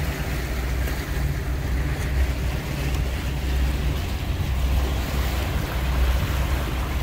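Stingray cuddy cabin boat under way: a steady low engine hum with the rush of water along the hull and wind buffeting the microphone.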